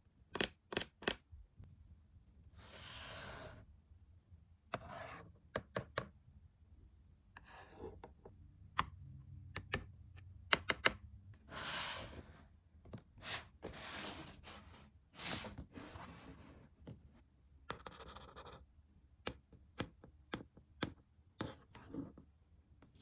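Toy packaging being handled and opened: an irregular string of sharp taps and clicks, with scratching and rubbing swishes between them.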